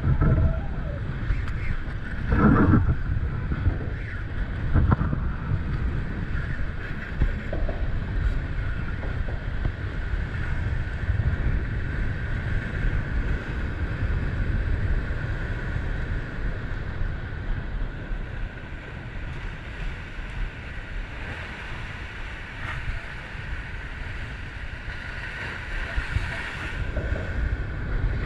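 Strong wind buffeting the action-camera microphone in a steady low rumble, with breaking surf behind it and a few stronger gusts in the first few seconds.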